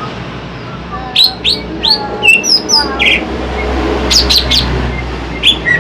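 Cucak ijo (green leafbird) singing: loud, sharp chirps and whistled notes, several sweeping steeply downward, in a quick run from about a second in, then a short pause and another burst in the second half.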